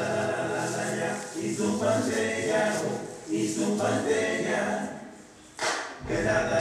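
Music for a dance workout: several voices singing together in short repeated phrases, breaking off briefly about five seconds in and starting again sharply.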